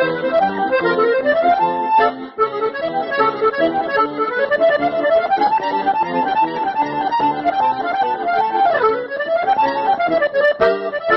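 Instrumental music: a melody of quick stepping notes over held chords and bass notes, with no singing.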